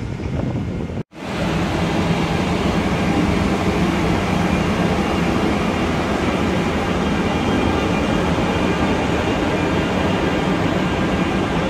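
Intercity train hauled by a red electric locomotive passing close along a station platform, with a steady loud rumble of the locomotive and coaches. The sound drops out briefly about a second in, then the rumble continues unchanged.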